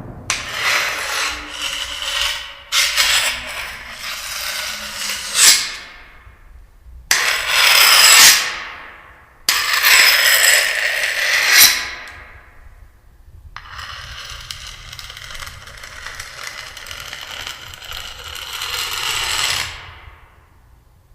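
Harsh scraping and rattling noises in four stretches separated by short gaps, each trailing off.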